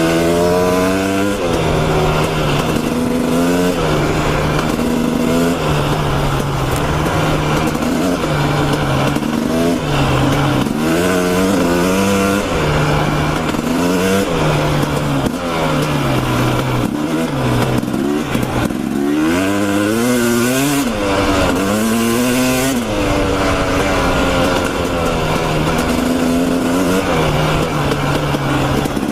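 Dirt bike engine under way, its pitch rising with each opening of the throttle several times and falling back or holding steady between, over a constant rushing noise.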